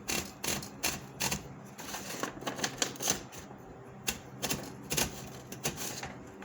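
Underwood No. 4 manual typewriter, its keys struck one at a time: about fifteen sharp clacks at an uneven pace.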